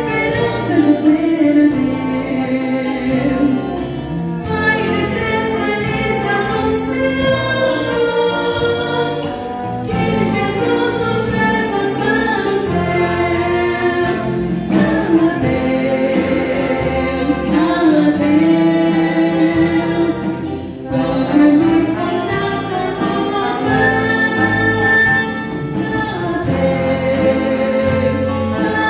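A woman singing a gospel hymn through a microphone, accompanied by a small orchestra of violins, cello, saxophones, trumpet, trombone and drums.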